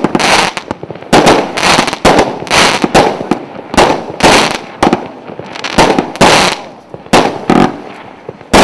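A 49-shot 0.8-inch firework cake firing: a quick run of bangs, about two or three a second, each trailing off in a short hiss. The shots thin out late on, and one loud bang comes right at the end.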